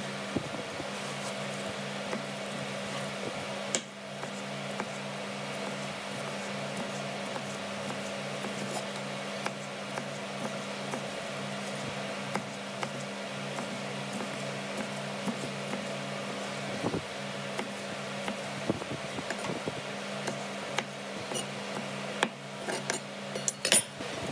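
Chef's knife cutting a yellow bell pepper on a wooden cutting board: scattered short taps and crunches of the blade through the pepper onto the wood, with a few sharper knocks near the end. A steady mechanical hum runs underneath.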